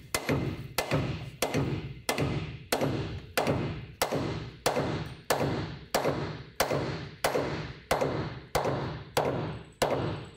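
A steady run of hammer blows, about one every 0.6 seconds, each with a short ring: a hot rivet through a cast bronze rudder gudgeon is being driven and upset, with a heavy anvil bucking the other end. The upsetting deforms the rivet and pulls the gudgeon tangs tight together.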